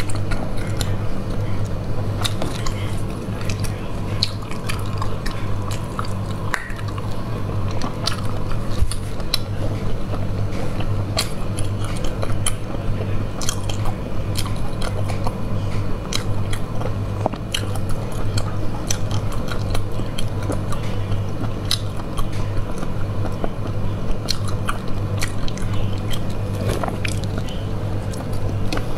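Close-miked mouth sounds of eating sauced sea snails: biting and chewing with many short, sharp clicks and smacks, over a steady low hum.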